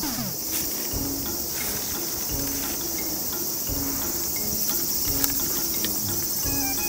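Steady high-pitched chorus of summer insects buzzing continuously, with a few soft low thumps of footsteps on the forest floor.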